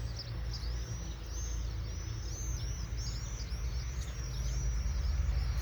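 A flock of small birds chirping, with many short, high, arched chirps overlapping in a busy continuous chorus. A steady low rumble runs underneath.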